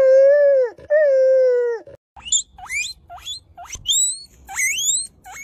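Two long, steady, whining animal calls, each about a second, then a run of short, sharply rising, high-pitched squeaks about two a second.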